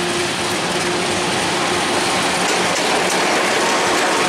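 Diesel locomotive at the head of a train passing close by: its engine runs with a steady low hum over the noise of the wheels on the rails, growing slightly louder as it comes alongside.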